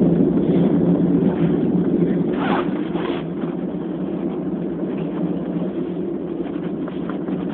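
Wind buffeting a phone's microphone, a steady rumbling noise, with one short brighter sound about two and a half seconds in.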